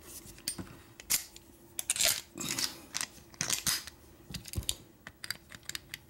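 Irregular small metallic clicks and clinks as a Schlage deadbolt cylinder is handled and a metal rod is worked into its back to take it apart.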